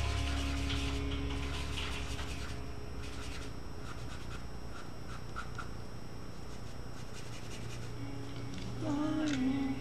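Charcoal pencil scratching on paper in short strokes while the tail of a song fades out; another song begins near the end.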